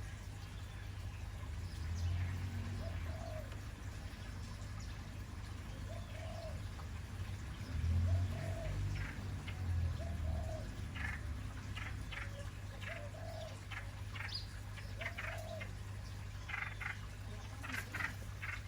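Birds calling: a soft low note repeating every second or two, with short high chirps that come more often in the second half, over a steady low hum.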